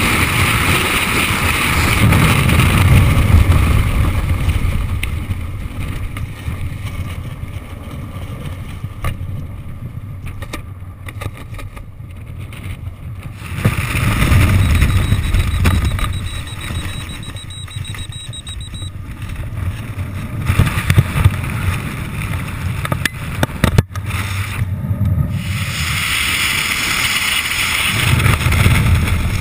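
Wind rushing over a skydiver's helmet-camera microphone in freefall and through parachute openings. It comes in three loud surges, near the start, about halfway and near the end, and eases to a lower rush in between as the canopy slows the fall.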